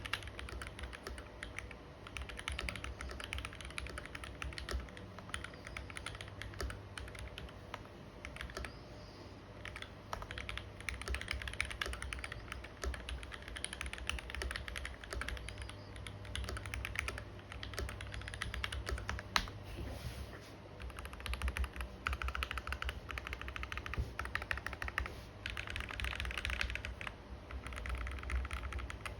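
Fast typing on a KBD67 V2 mechanical keyboard in a polycarbonate case, fitted with Mauve switches and GMK Lux keycaps: dense runs of key clacks with short lulls between bursts, and one sharper clack about two-thirds of the way through.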